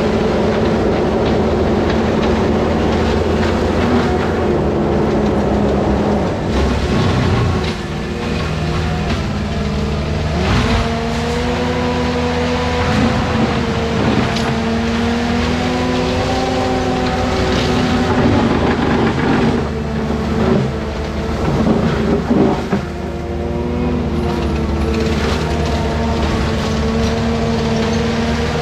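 Forestry mulcher on an ASV compact track loader running under load, its engine and cutter drum grinding through brush and saplings. The engine note shifts in pitch about ten seconds in as the load changes, with noisy bursts of wood being chewed up later on.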